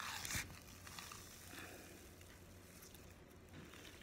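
Hands squishing and kneading soft white slime in a glass bowl: faint wet squishes and small crackles, with a louder rustling burst in the first half second.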